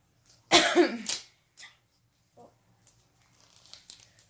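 Toy packaging torn open in one loud rip about half a second in, followed by faint crinkling and small clicks.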